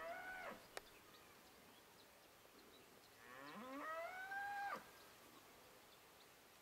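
Two faint, drawn-out animal calls, each rising in pitch, holding and then breaking off; the second lasts about a second and a half. A single sharp click comes between them.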